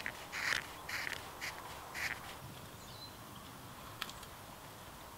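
Small blade scraping the bowl of a carved wooden spoon in short rhythmic strokes, about two a second, which stop a little over two seconds in. A single sharp click follows near the end.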